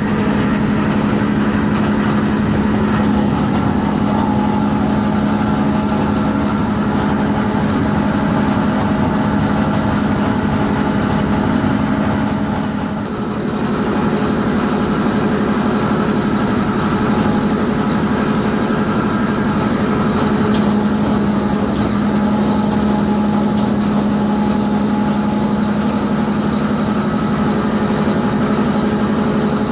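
Large machine motor running steadily with a loud, constant low hum and mechanical rattle, dipping briefly about 13 seconds in.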